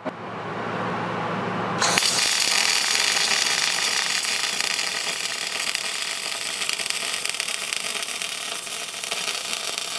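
MIG welding arc crackling steadily as a roll-cage tube is welded at the floor. It is quieter for the first couple of seconds, then crackles loudly from about two seconds in and cuts off abruptly at the end.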